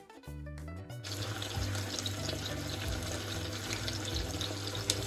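Water running steadily from a kitchen tap, starting about a second in, with background music underneath.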